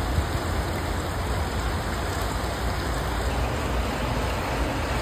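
Heavy rain pouring down in a steady hiss, with a low rumble underneath.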